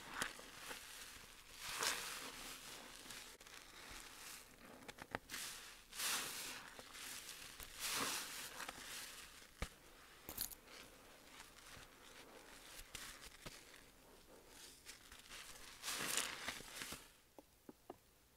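Soap-soaked sponge squeezed in thick dish-soap foam, with wet squelching and crackling suds in repeated squeezes about every two seconds. Near the end the squeezing stops and a few soft clicks follow.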